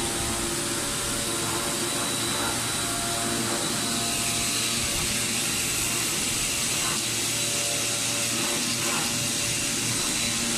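Aoke flatbed sample cutting machine running: a steady whirring hiss with a thin high whine that holds even throughout.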